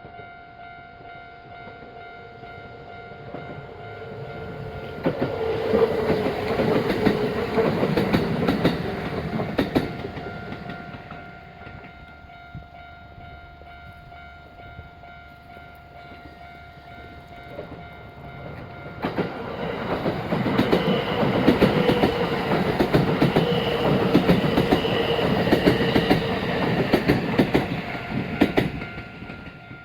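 Two Kintetsu electric trains pass a level crossing one after the other, wheels clattering over the rail joints; the first goes by about five seconds in and the second, louder and longer, starts a few seconds before the 20-second mark. The crossing's warning bell keeps ringing behind them.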